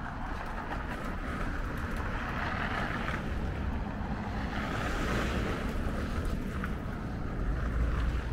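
Cars passing on a snowy road, the hiss of their tyres swelling and fading twice, over a low rumble of wind on the microphone that grows near the end.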